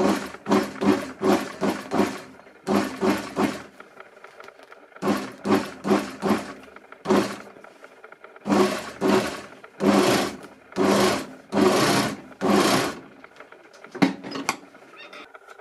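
Industrial overedge sewing machine with disc feed wheels whip-stitching the edge of sheepskin suede, run in many short bursts that stop and start, the runs getting a little longer about halfway through.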